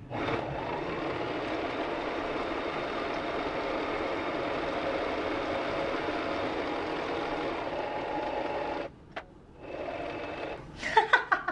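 Singer M1500 electric sewing machine stitching, sped up four times, a dense fast whirr of motor and needle. Near the end it stops with a single click, then runs again briefly and more quietly.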